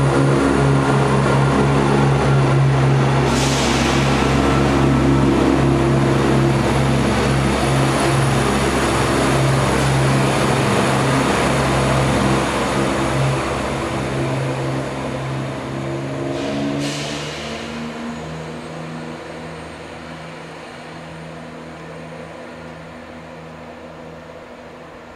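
Class 168 diesel multiple unit pulling away, its underfloor diesel engines running under power with a steady drone that fades over the second half as the train draws away. Two short hisses, about three seconds in and about seventeen seconds in.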